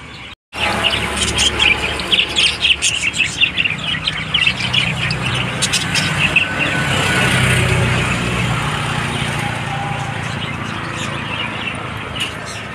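A flock of caged budgerigars and cockatiels chirping and chattering, many quick calls overlapping, starting after a brief break just after the start. A low hum runs underneath.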